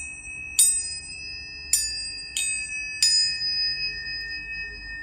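Tuning forks struck four times, each strike a sharp tap followed by high, steady ringing tones that overlap and keep sounding after the strikes stop.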